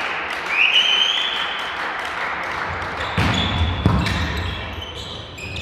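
Indoor volleyball hall: crowd noise with short high squeaks early on, then two thuds of the volleyball about three and four seconds in.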